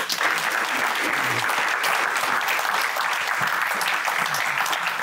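Audience applauding: a steady crowd of clapping hands in a hall, starting suddenly and tailing off at the end.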